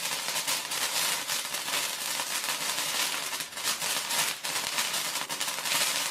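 Handheld sparklers burning with a dense, continuous fizzing crackle of many tiny sparks popping.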